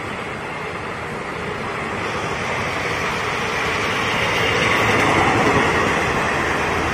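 Indian Railways ICF passenger coaches rolling past at speed: a steady rumble of wheels on rail that grows louder about halfway through.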